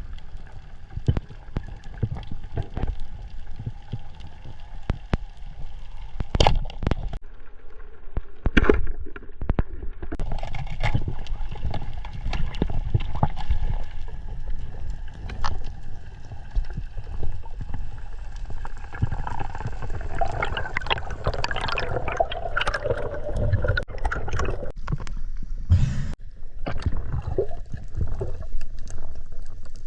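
Water sloshing and gurgling, with many scattered knocks and clicks throughout.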